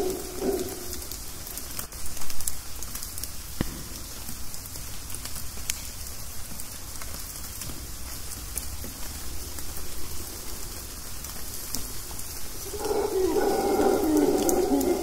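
Rain dripping through the forest canopy, with scattered sharper drops over a steady hiss. A mantled howler monkey's deep howling fades out in the first second and starts up again, louder than the rain, about 13 seconds in.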